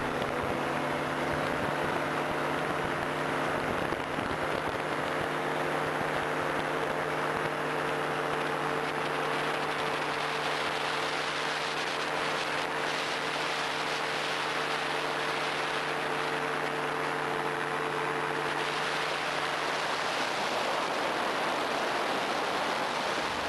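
Steady drone of a small aircraft's engine in flight, a constant hum under heavy wind rush over the microphone.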